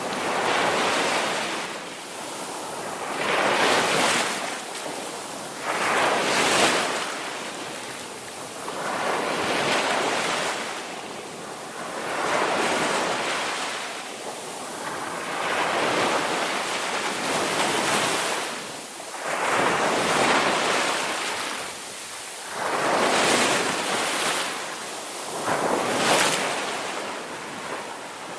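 Ocean waves breaking on a shore, rising and falling in a slow rhythm with a new wave swelling every two to three seconds.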